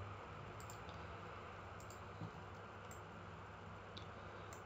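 A few faint, scattered computer mouse clicks over a steady low hum and hiss.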